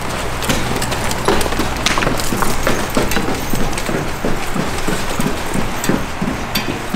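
Firefighters' booted footsteps and gear knocking as they climb exterior stairs carrying a hose line: irregular thuds and clatters, several a second, over a steady low hum.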